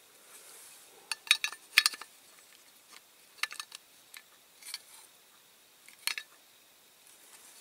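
Sharp metallic clinks and taps from a diecast metal model truck being handled. The loudest cluster comes about a second in, with a few more spread through the rest.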